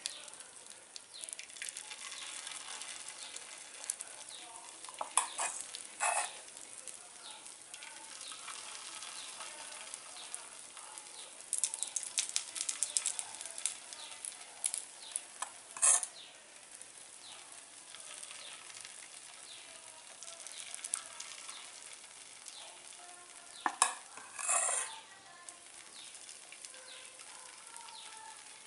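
Batter sizzling and crackling in hot oil in the hollows of a paniyaram pan as it is poured in and starts to fry, with a steady hiss. Several short clusters of sharp clicks stand out, about a quarter of the way in, around the middle, and near the end.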